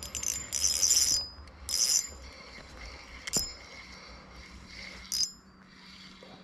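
Drag of a Proberos size 2000 spinning reel slipping in short ratcheting bursts as a hooked fish takes line: a longer burst about half a second in, a shorter one near two seconds, another a little after five seconds, and a single sharp click in between. The angler finds this drag a bit noisy.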